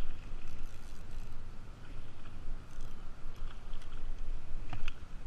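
Spinning reel cranked steadily to retrieve a just-cast spinner lure, over a low rumbling noise with a few faint clicks near the end.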